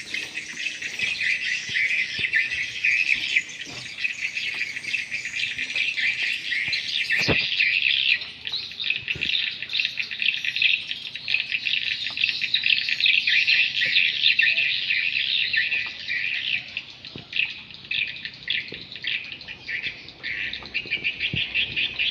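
Swiftlets twittering: a dense, continuous chatter of many rapid high chirps, with one short knock about seven seconds in.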